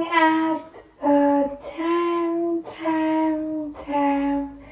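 A high, childlike voice singing a sing-song chant of the repeated word 'time', five separate notes each held at a steady pitch with short breaks between them.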